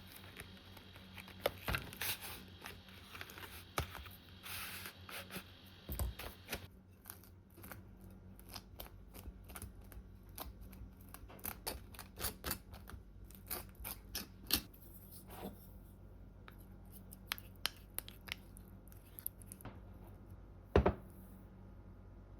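A long series of short, sharp snips and clicks from hands working with small objects, irregular in timing, with one louder knock near the end.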